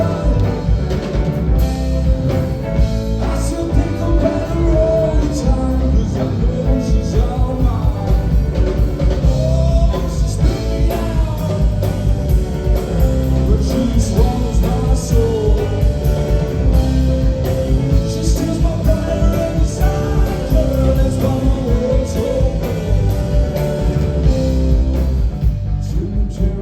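Live rock band playing a song, with a steady drum-kit beat, guitar and a singing voice.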